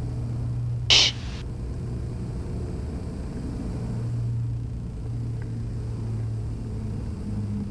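Twin piston engines of a Beechcraft Baron B55 running at low landing power, a steady drone heard through the cockpit intercom. A brief hiss about a second in.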